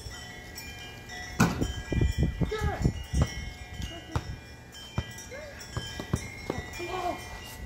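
Basketball bouncing on hard dirt: a run of sharp thuds, the loudest about a second and a half in. Steady high ringing tones sound underneath throughout.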